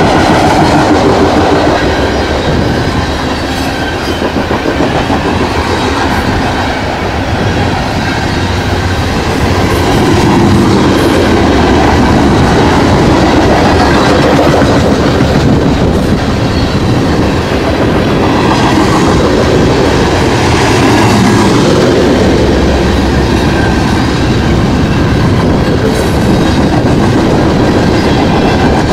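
Freight train of loaded-or-empty coal gondola cars rolling past at close range: a loud, steady rumble of steel wheels running on the rails.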